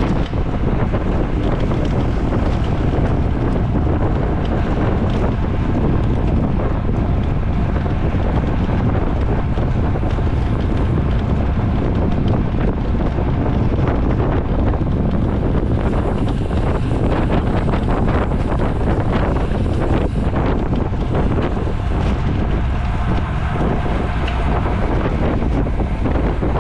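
Wind rushing over the microphone of a racing cyclist's camera while riding at speed: a loud, steady, rumbling rush of air.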